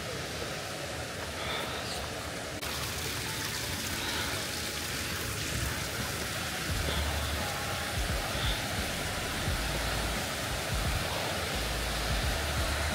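Steady rush of a mountain stream and waterfalls, with wind gusting on the microphone as low rumbles in the second half. The sound steps up abruptly about two and a half seconds in.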